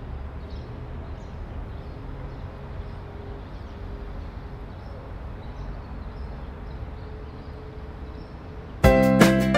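Outdoor ambience: a steady low rumble with a few faint, short high chirps. About nine seconds in, background music with plucked notes cuts in suddenly and much louder.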